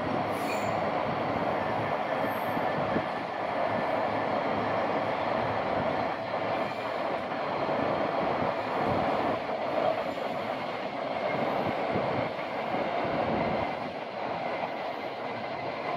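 A train passing on the railway: a steady noise of wheels running on the rails, easing a little near the end.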